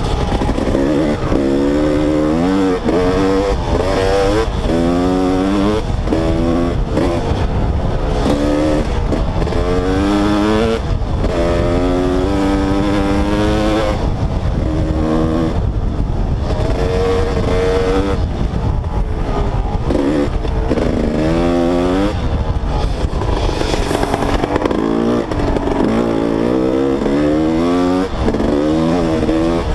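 Two-stroke dirt bike engine ridden along a trail, its pitch rising and dropping again every second or two as the throttle is opened and closed and the gears change.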